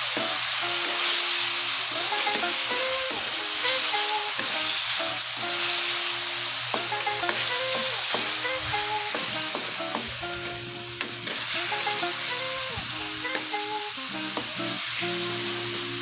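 Food sizzling as it fries in a pan and is stirred, with occasional clicks of the utensil, over a steady hiss. Background music with a repeating melody plays underneath.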